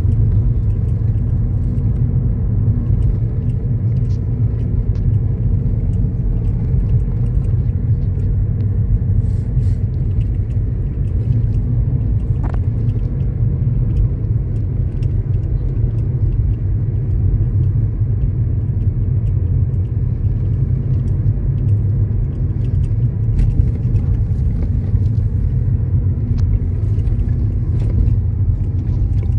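Car driving at a steady speed: a continuous low rumble of engine and road noise.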